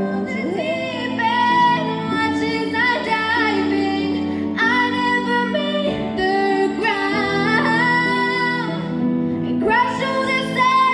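A song with a woman singing long held notes in phrases over instrumental backing.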